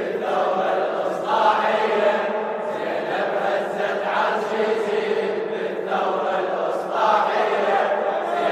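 A group of men chanting a refrain together in unison, answering the lead reciter in a Shia latmiyya, in steady phrases of a second or two.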